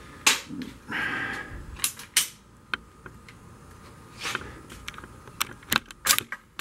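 Clicks, clacks and a short sliding scrape, about a second in, from a two-wheeled beach cart's metal telescoping handle being worked and shortened. The handle is loose and flimsy and rattles in its mounts.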